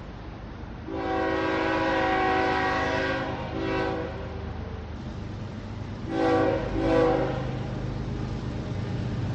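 Train horn sounding a chord over the steady low rumble of a moving train: one long blast about a second in, a short one after it, then two short, loud blasts in quick succession past the middle.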